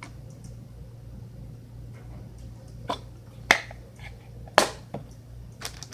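A plastic shampoo bottle being squeezed and handled while shampoo is dispensed: a few sharp plastic clicks and snaps, two of them loud, over a steady low hum.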